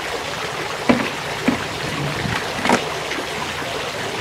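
Steady trickle of water from a garden fountain, with three short knocks from handling a plastic concrete mold: about a second in, half a second later, and near the three-second mark.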